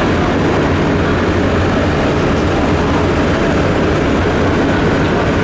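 Star Ferry's engine running steadily below deck: a low drone under a rushing wash of noise.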